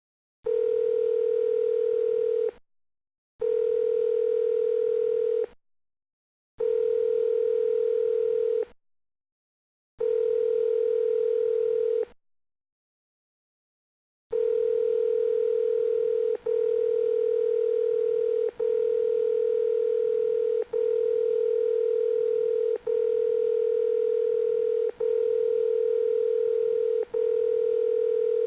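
Electronic telephone tone at one steady pitch. It sounds in four two-second pulses separated by short silences, then after a pause it comes back as an almost unbroken tone with a brief dip about every two seconds.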